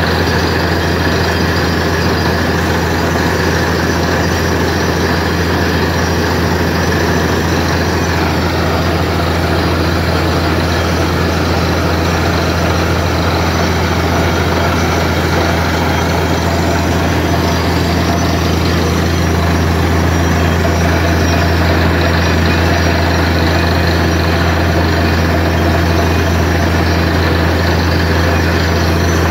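Borewell drilling rig at work with its ELGi PG 1200S-330 diesel-driven screw air compressor running: a loud, steady low drone with an even rush of noise above it.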